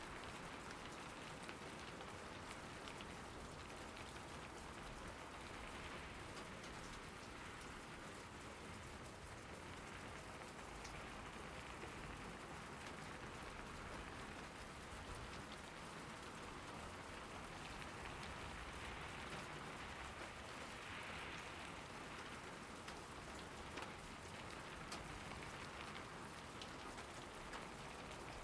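Steady rain falling, a constant hiss with scattered drop ticks.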